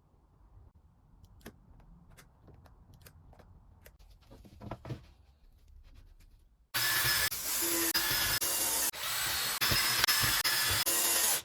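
Faint clicks and handling noises, then about seven seconds in a power tool, most likely the router in the router table, starts abruptly and runs loud and steady with a whine. The noise is chopped by several sudden breaks.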